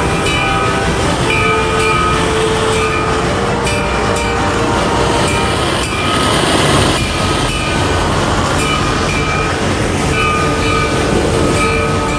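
Fire hoses spraying high-pressure jets of water and foam, a loud steady rush, under background music with held notes.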